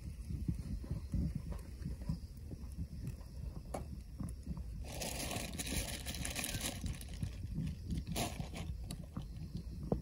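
Low rumble of a portable butane gas stove burner under a hinged sandwich toaster, with a few sharp metal clicks. About five seconds in comes nearly two seconds of hiss as the toaster is opened on the cooked bread omelette.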